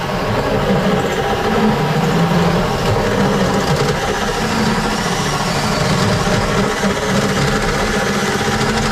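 Cordless drill running steadily under load, driving a bi-metal hole saw through the sheet-steel back of an electrical panel enclosure.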